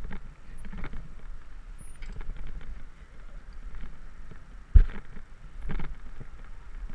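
Low rumble of wind on a helmet-mounted microphone during a rope descent. Scattered knocks and rattles come from abseiling gear and shoes against the building's wall, the sharpest knock a little under five seconds in and another about a second later.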